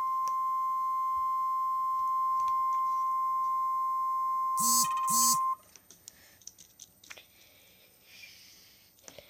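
Emergency Alert System attention tone: one steady high tone that cuts off about five and a half seconds in, just after two short loud bursts of noise.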